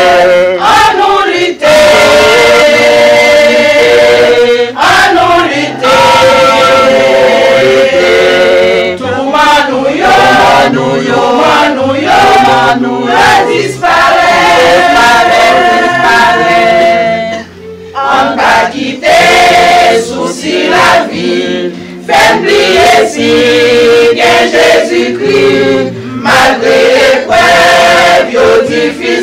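Women's church choir singing a hymn together, with sustained sung notes and one short break between phrases a little past halfway.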